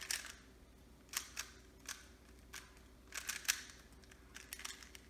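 Plastic speed cube being turned by hand: irregular clicks and clacks as its layers are twisted, with a quick run of turns a little after three seconds in.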